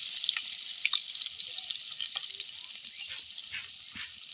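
New potatoes frying in hot oil in an earthen kadai: a steady sizzle scattered with small pops and crackles, growing fainter toward the end.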